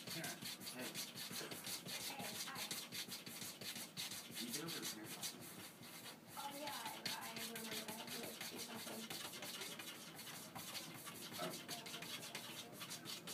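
A cat's front paws scratching and batting at a closed wooden door in a steady run of quick scrapes and taps, as the cat tries to get in.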